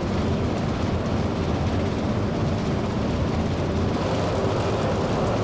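Steady rushing and running of a feather-sorting machine, which churns the raw feathers and blows them with air between its chambers to sort them by density.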